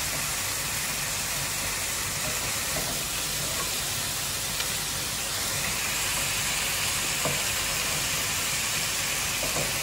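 Butter and flour sizzling in a frying pan as they cook into a roux, stirred with a wooden spoon; a steady hiss with one small click about seven seconds in.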